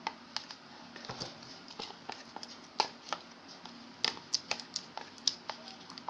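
Clay being pressed and mashed into glue with a stirrer in a container to blend it evenly: irregular sharp clicks and taps, a few a second.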